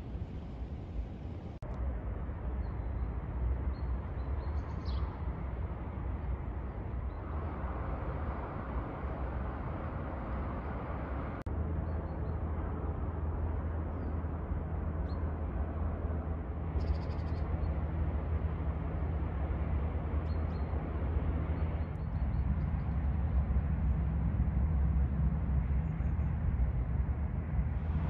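Outdoor ambience: a steady low rumble, with a few faint, short, high bird chirps now and then.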